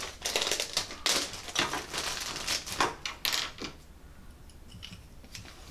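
Clear plastic parts bag rustling and crackling as it is opened and handled, with many small quick clicks. It is busy for about the first three and a half seconds, then turns faint.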